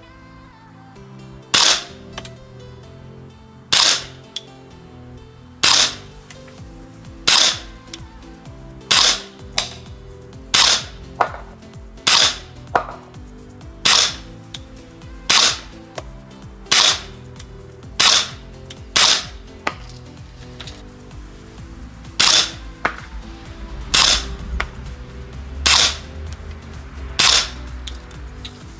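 Gas-blowback HK416 airsoft rifle firing about twenty single shots, one every one to two seconds, each a sharp crack with the bolt cycling.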